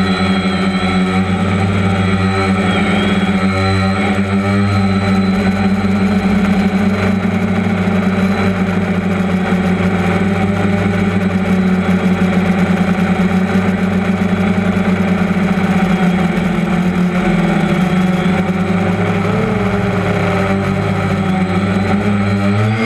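DJI Phantom quadcopter's motors and propellers buzzing steadily in flight, heard loud and close from the GoPro mounted on its frame. The pitch of the hum wavers and bends as the drone manoeuvres.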